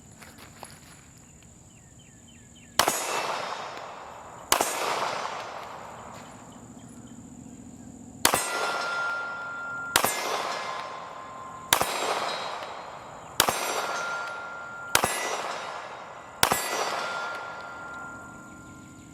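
Eight shots from a Glock 43 9mm subcompact pistol, mostly about a second and a half apart with a longer gap after the second, each sharp report trailing off. After several of the hits, steel targets ring with a steady clear tone.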